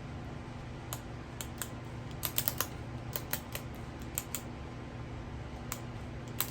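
Click-type torque wrench ratcheting as a cylinder head bolt is tightened: scattered short sharp clicks, a quick run of several about two seconds in, then a few more singles and pairs, over a steady low hum.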